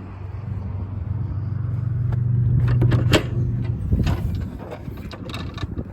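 A low, steady vehicle engine hum that builds for a few seconds and then drops away, with several sharp metallic clicks and rattles near the middle and toward the end.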